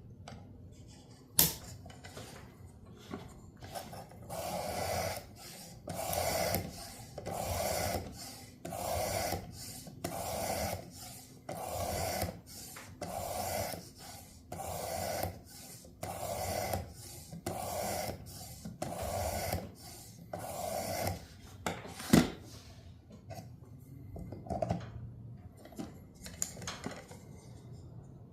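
Knife blade being drawn along the abrasive plate of a Work Sharp sharpener: a steady series of scraping strokes, about one every second and a half, as the dull edge is ground. A sharp click comes shortly after the start and another just past two-thirds of the way through, with quieter, irregular scraping near the end.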